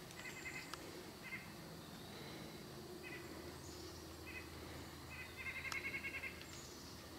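Faint woodland ambience: short, rapid chirping trills repeat every second or so, and the longest run, about a second long, comes near the end. A low steady hum sits under the chirps.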